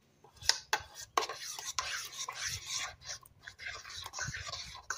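A metal spoon stirring thick salsa in a stainless steel pot: wet scraping, with irregular clinks of the spoon against the side of the pot.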